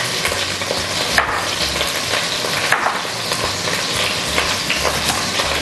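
Food frying in hot oil in a pot, a steady sizzle, with a few light knocks of a knife on a cutting board as an onion is sliced into rings.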